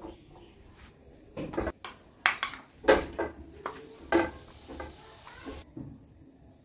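A spoon and metal cookware clinking and knocking: a spoon against a stainless-steel bowl of batter and an aluminium wok on a gas stove, a series of sharp strikes.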